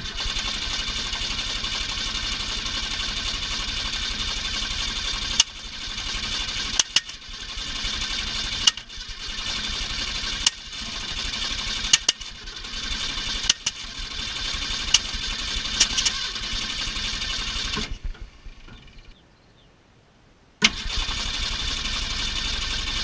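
A 1965 Ford Fairlane's starter cranking the engine in long stretches, with several sharp cracks along the way. There is a pause of a couple of seconds near the end, then cranking starts again. The engine does not catch and run.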